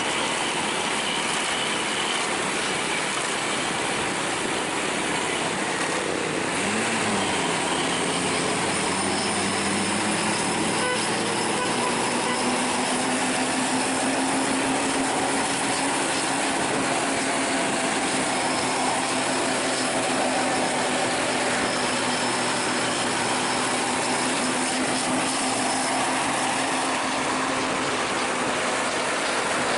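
Steady road noise of buses driving at speed: a dense rushing hiss of tyres and air with a low engine hum underneath.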